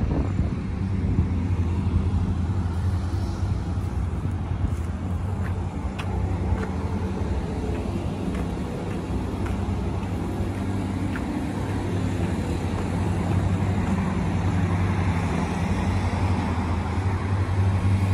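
Road traffic going by with a steady low engine hum.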